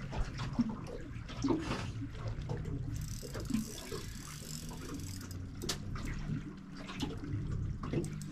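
Small waves lapping and splashing against an aluminum boat hull in irregular little slaps, over a low steady hum.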